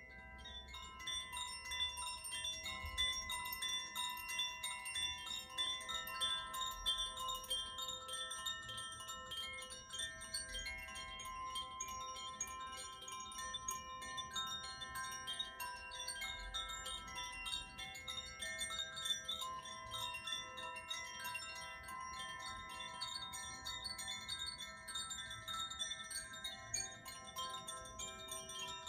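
Several tuned wind chimes (Koshi and Zaphir chimes) rung together, giving a continuous shimmering wash of many overlapping sustained ringing tones. It swells in about a second in, after a quieter moment.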